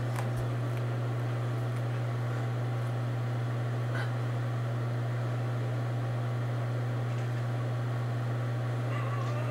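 Steady low hum with a layer of hiss, unchanging, with a faint click or two.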